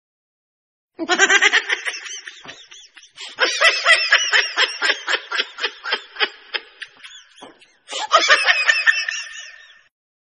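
Laughter sound effect: a high-pitched giggling laugh in three bursts. The middle burst is a quick run of 'ha' pulses, about five a second, that trail off.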